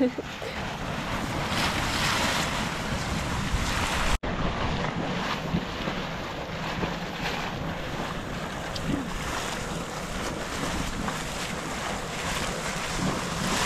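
Boiling geothermal hot spring churning and rushing, with wind buffeting the microphone. The sound breaks off for an instant about four seconds in, then carries on.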